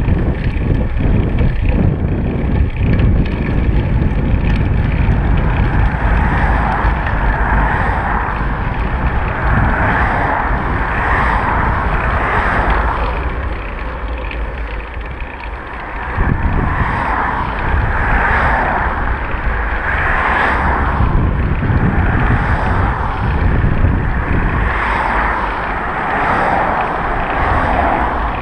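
Wind buffeting a bicycle-mounted camera's microphone over the rumble of road riding: a steady low rumble with a hiss that swells and fades every second or two.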